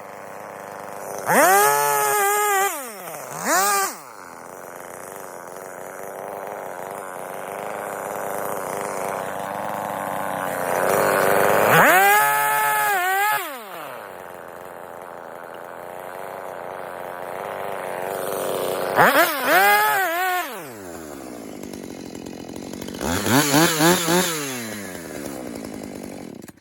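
Husqvarna 450 Rancher two-stroke chainsaw idling, its throttle blipped in about five short revs that rise and fall in pitch. The engine cuts off suddenly at the very end.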